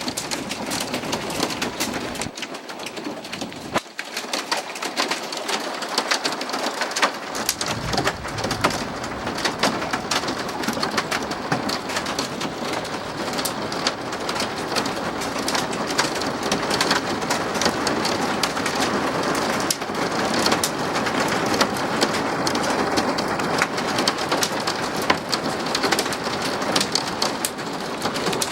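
Hail and rain pelting down in a dense, steady patter of sharp little impacts, growing heavier about seven seconds in.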